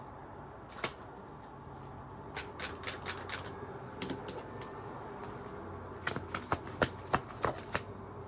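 Tarot cards being handled: a single sharp card snap about a second in, then runs of quick flicks and taps as the deck is shuffled, busiest near the end.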